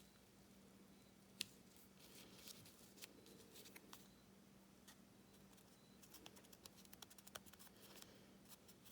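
Near silence: faint clicks and light rustles of cardstock and craft tools being handled on a work surface, more frequent in the second half, over a low steady hum.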